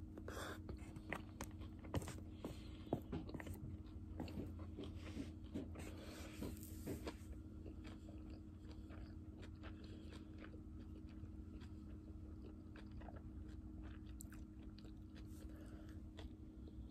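A person chewing a mouthful of grilled meat and rice, with scattered small clicks and a few sharper ticks in the first several seconds, growing quieter after that. A faint steady hum lies underneath.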